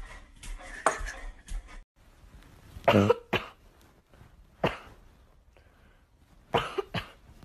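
Light clicks and clatter in the first couple of seconds, then a series of short, sharp coughs at irregular intervals: a pair about three seconds in, one near the middle and another pair near the end.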